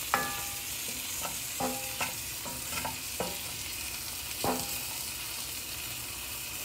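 Diced onions sizzling in butter and olive oil in a skillet, stirred with a wooden spoon that scrapes across the pan bottom in short strokes, about eight times. The scraping works up the browned fond as the onions sauté.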